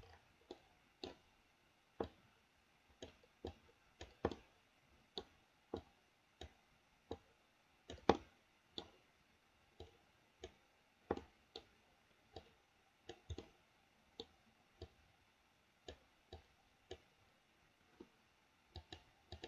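Faint computer mouse clicks, single sharp clicks every half second to a second, one noticeably louder about halfway through.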